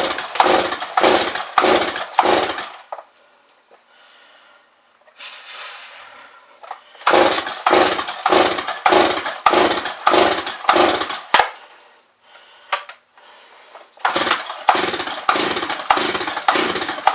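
Stihl 021 two-stroke chainsaw being cranked with its pull-cord recoil starter in three runs of quick strokes, about two pulls a second, with the engine not catching and running.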